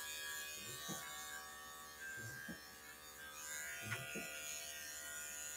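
Electric dog-grooming clipper buzzing steadily as it shaves down a cocker spaniel's neck coat, with a few faint short low sounds now and then.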